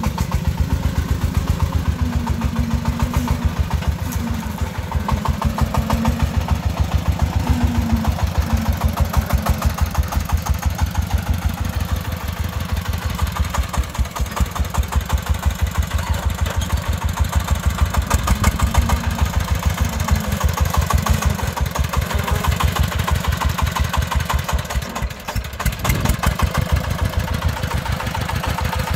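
Single-cylinder diesel engine of a công nông farm truck chugging steadily while the truck hauls a load of soil. Near the end the engine briefly eases off, then picks up again.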